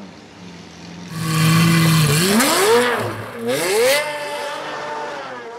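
Sports car engine revving: after a short quiet start it comes in loud and steady, then climbs and drops in pitch twice, and holds a high pitch that slowly sinks near the end.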